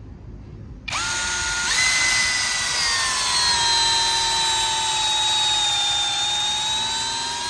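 AKUZA K2 cordless drill motor starting about a second in, stepping up in speed, then running steadily with a high whine that sinks slightly in pitch.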